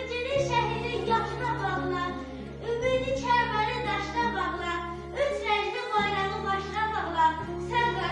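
A female voice singing a slow, mournful song over a backing track of held low chords that change every couple of seconds.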